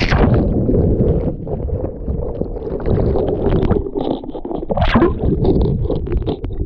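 Muffled, low rumbling and sloshing of water around the camera, with scattered knocks. The bright splash noise cuts off at once, as if the camera has gone into or under the water.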